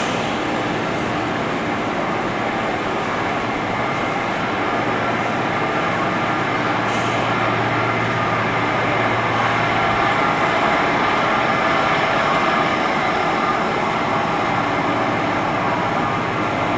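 XPT diesel power car running at a standstill: a steady mechanical drone with several held tones and a thin high whistle, swelling slightly midway.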